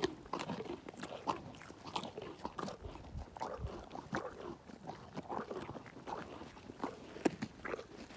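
Pony crunching carrots close to the microphone: a quick, irregular run of wet crunches and chewing.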